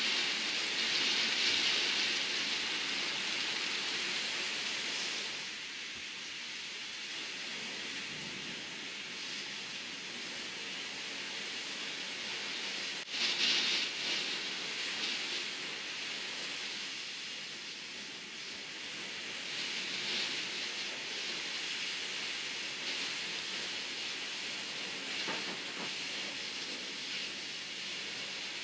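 Heavy downburst rain and gusting wind rushing against a window pane in swelling waves, with a sharp click about halfway through just before the loudest gust.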